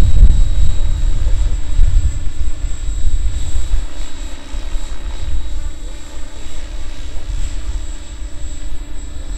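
Radio-controlled helicopter flying low and close, its rotor and motor running steadily with a thin high whine. A heavy low rumble is loud at first and dies down about halfway through.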